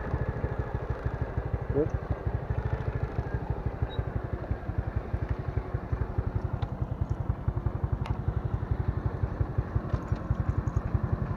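Motorcycle engine idling, an even pulsing of about nine or ten beats a second.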